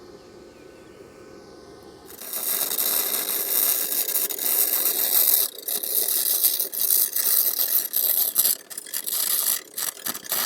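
Electric welding arc crackling as a bead is laid on steel, starting suddenly about two seconds in and going in a few spells with short breaks; before it, a low steady hum.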